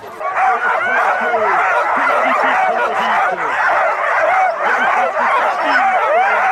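Many harnessed sled dogs of husky type barking and yelping all at once in a dense, continuous din. This is the eager noise of teams waiting at a race start. It starts suddenly about a third of a second in.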